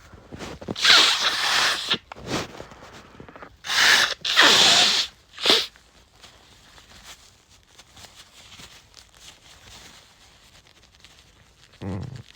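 A congested man's loud, hissing nasal bursts: a long one about a second in, three more between about four and six seconds, and a short one near the end.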